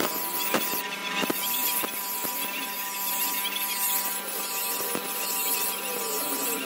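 Electric grinding wheel running with a steady hum while a knife blade of hardened ball-bearing steel is pressed against it, giving a continuous high grinding hiss with a few faint clicks.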